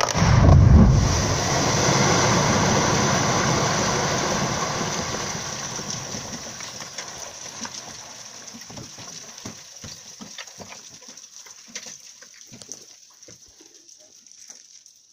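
Quarry rock blast: a sudden loud, deep boom, followed by a long rushing rumble of blasted rock collapsing down the face that fades over several seconds. Scattered clatters of falling stones follow as it dies away.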